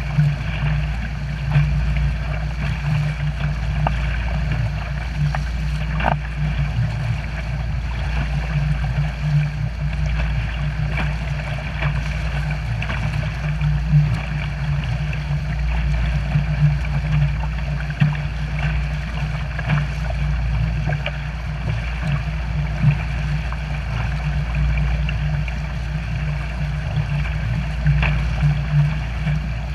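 Water rushing and splashing in a pontoon boat's churning wake, over the steady drone of its 90-horsepower outboard motor, heard from a personal watercraft towed close behind. Occasional sharp clicks sound through it.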